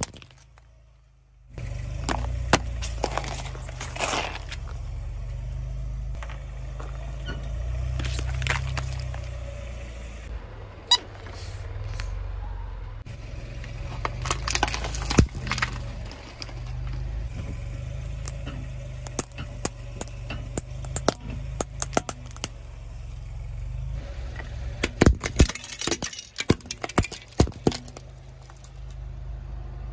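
Car tyres rolling slowly over toy cars, which crack and crunch as they break under the weight. Bursts of snapping come in several separate rounds, over the low steady rumble of the car.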